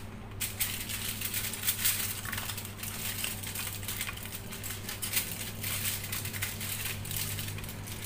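Aluminium foil crinkling and crackling in irregular bursts as its edges are folded and crimped by hand around a baking tray to seal it, over a steady low hum.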